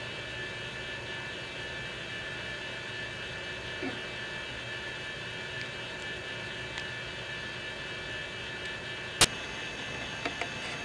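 Steady hum and hiss of room tone. A single sharp click comes about nine seconds in, followed by a few faint ticks.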